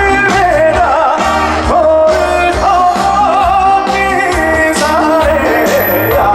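A male singer performing a trot song live over a full band with bass and drums; the sung melody wavers with heavy vibrato.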